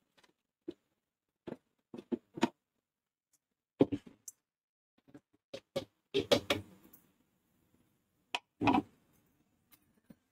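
Scattered clinks and knocks of a stainless-steel mixer-grinder jar being handled and set down on the counter, with a longer clatter about six seconds in as its lid is pulled off. The blender motor is not running.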